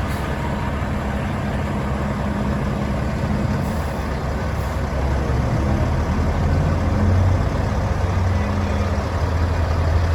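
Heavy vehicle engine running slowly in a steady low rumble, growing louder from about halfway through as it comes closer.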